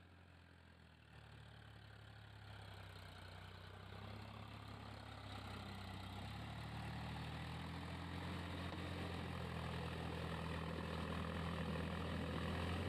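Indo Farm 3048 tractor's diesel engine running steadily as it pulls a rotavator through a flooded paddy field, puddling the mud; the engine hum grows steadily louder.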